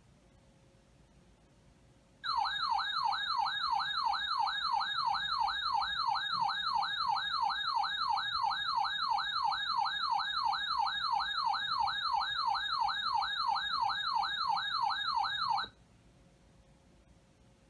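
Electronic warbling alert tone heralding an emergency weather alert. It rises and falls rapidly, about three times a second, starts about two seconds in, runs for about thirteen seconds and cuts off suddenly.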